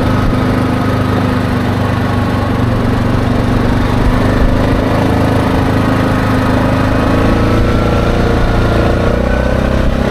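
ATV engine running steadily at cruising speed, with tyres rolling on a gravel road; the engine pitch rises slightly near the end.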